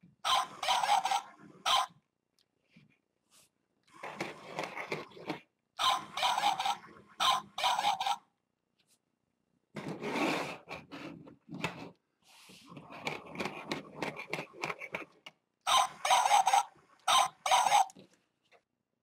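Electronic barking toy dog, stripped of its plush coat, playing recorded barks through its small speaker in several loud bursts. Between them come fainter stretches of its gear motor and plastic legs scraping and rubbing on the table.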